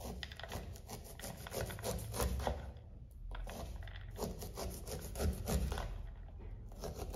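A knife slicing kernels off an ear of fresh corn in quick repeated scraping strokes, the cut kernels scattering onto a wooden cutting board. There are brief pauses about three seconds in and again near the end.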